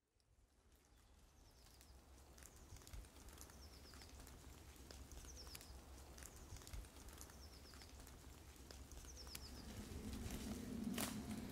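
Faint woodland ambience fading in from silence: a bird repeating a short, high, falling call every second or two over a low steady rumble, with scattered small ticks. Near the end there is a louder crack, and a low rustling grows.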